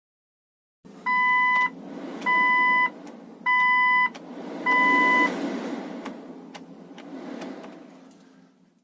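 Four evenly spaced electronic beeps, each about half a second long, over a low hum with faint clicks that fades out near the end.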